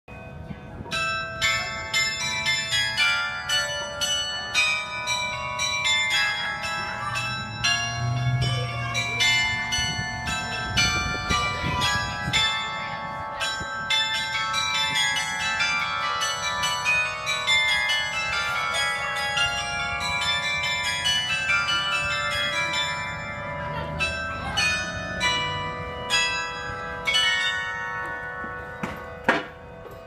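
The Swan Bell Tower's bells playing a Christmas carol tune: quick struck notes follow one another several times a second and ring on over each other. A sharp click comes near the end.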